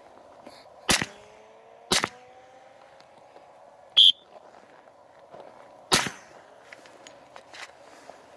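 A suppressed Glock 10mm pistol firing four shots at uneven intervals, roughly one to two seconds apart, each a sharp crack with a short echo.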